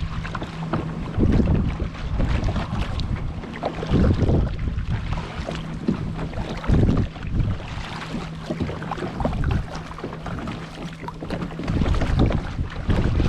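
Kayak on open water, with water splashing against the hull and paddles and gusty wind buffeting the microphone. A faint steady low hum runs underneath and fades out about two-thirds of the way through.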